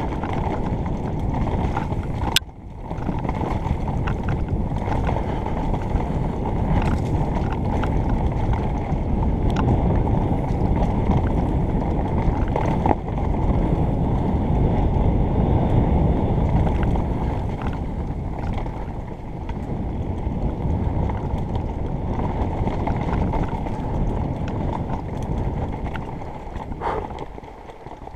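Mountain bike riding down a dirt forest trail, heard through a helmet-mounted camera: a steady rumble of wind and tyre noise on the microphone, with scattered clicks and rattles from the bike over bumps and one sharp click about two seconds in. The rumble eases near the end as the bike slows.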